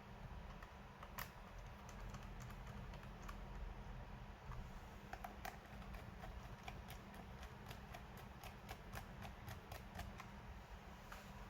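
Typing on a laptop keyboard: light, irregular key clicks, a few scattered at first, then a quick run in the second half, over a low steady hum.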